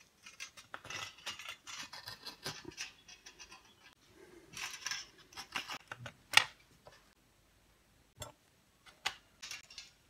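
Metal tweezers scraping and clicking against the coiled resistance wire and metal frame of a hair dryer heating element, as the broken heating wire is stretched out to be rejoined. Irregular small scratches and taps, with one sharp click a little past the middle.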